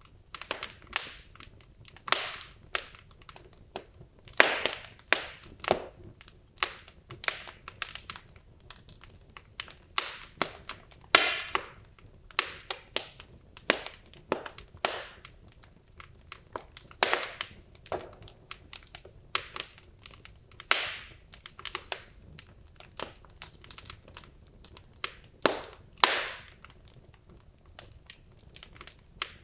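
Wood logs burning in a fireplace, crackling and popping at an irregular pace, several sharp snaps a second, with a few louder pops standing out.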